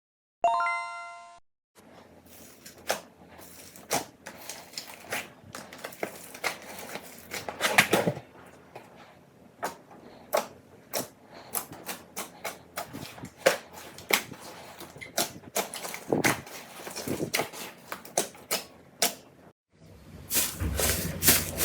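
A short chime in the first second and a half, then slime being squeezed and poked by hand, giving irregular sticky pops and crackles.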